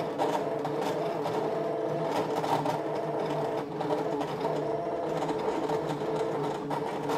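Brother ScanNCut cutting machine cutting vinyl: a steady motor whine that steps between pitches as the blade carriage travels and the mat is fed back and forth, with light clicks. It is re-cutting the same design along the same path because the first pass did not cut cleanly through the vinyl.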